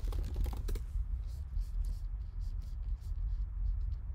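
Computer keyboard typing and mouse clicks: a quick run of keystrokes in the first second, then scattered single clicks, over a steady low hum.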